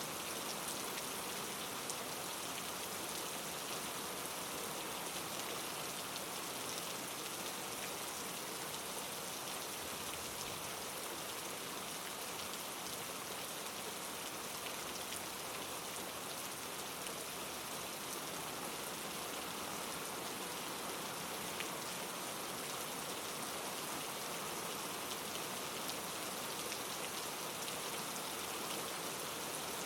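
Steady, unchanging white-noise hiss of the rain kind, even from low to high with the most in the highs, with a few faint ticks here and there.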